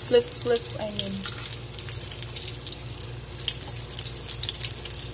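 Lumpia (spring rolls) deep-frying in hot oil in a steel wok, the oil sizzling and crackling steadily.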